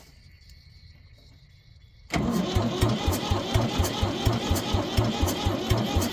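The 1973 Ford 4500 backhoe's diesel engine being cranked by its starter. It begins suddenly about two seconds in and turns over in an even chug of about four to five compression pulses a second, without firing into a run.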